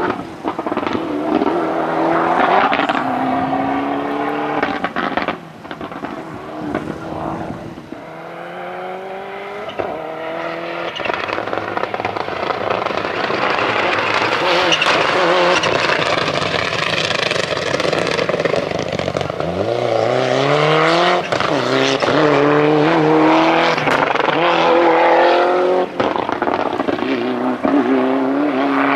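Rally car engine accelerating hard along a special stage, revving up through the gears with the pitch climbing and then dropping at each shift. It grows louder about halfway through.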